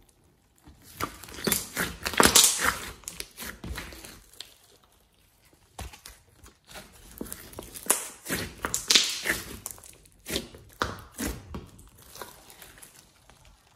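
Hands squeezing, stretching and pressing a glossy clay slime: sticky, wet crackles and pops come in two bunches, about a second in and again about eight seconds in, with quieter pauses between.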